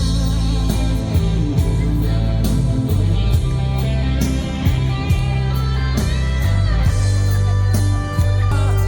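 Live rock band playing an instrumental break between verses: a lead electric guitar with bending notes over bass and drums with cymbals.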